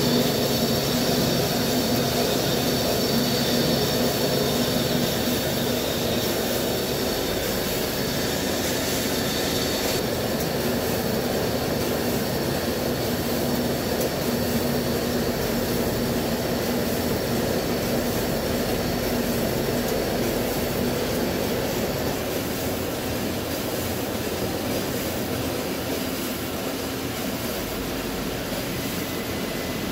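CNC vertical turning lathe cutting a large forged steel ring, the carbide insert turning the bore as the table spins: a steady machining noise with a low hum and a faint high whine that eases off about a third of the way in.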